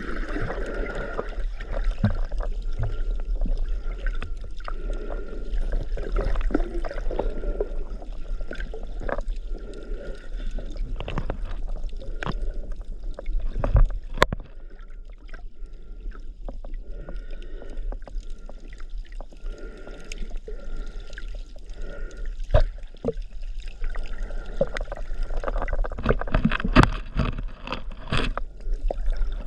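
Water splashing and sloshing close to the microphone, with irregular small knocks.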